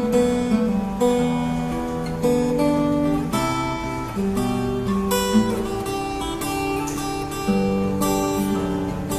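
Background music: an acoustic guitar playing a steady run of plucked notes and strummed chords.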